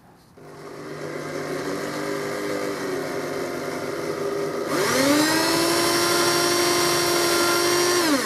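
Bench drill press running, its twist bit boring a hole through a turned wooden disc. A little before the five-second mark a louder whine rises in pitch, holds steady, and drops away near the end.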